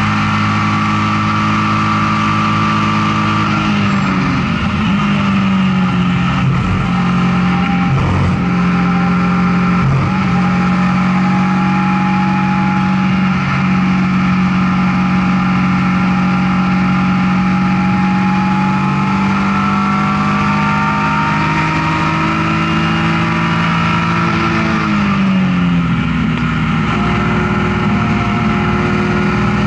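BMW E36 M3 race car's straight-six engine heard from inside the cabin at racing speed. It holds a high note at first and drops sharply about four seconds in, with a couple of short jolts, then climbs steadily for a long stretch. It drops again near the end and starts rising once more.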